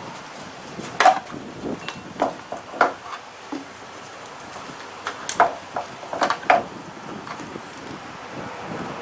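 A scattering of short, sharp knocks and clicks as engine parts are handled and fitted together, in clusters about a second in, around two to three seconds, and around five to six seconds. A steady hiss of wind on the microphone runs underneath.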